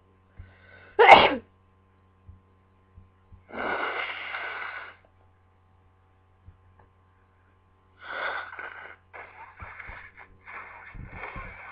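A person sneezing once, a sharp, loud burst about a second in, just after a short in-breath. A longer breathy exhale follows, then a run of short, choppy breaths near the end.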